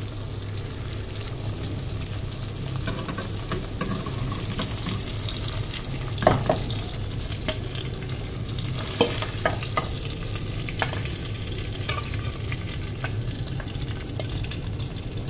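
Fish pieces frying in hot oil with onion and garlic in a metal pot, a steady sizzle. Scattered clicks and scrapes of a utensil against the pot as the fish is turned and lifted out, the loudest about six seconds in.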